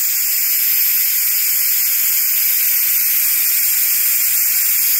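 Steam jetting from the pressure-release valve of a Nesco Carry Canner electric pressure cooker: a loud, steady hiss as the cooking pressure is quick-released.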